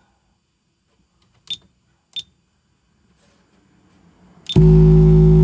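Toro Tech Force 8 car subwoofer playing an SPL test burp at a 1600-watt target: a very loud, steady bass tone that starts abruptly near the end and distorts on the microphone inside the car's cabin. Before it come two short ticks.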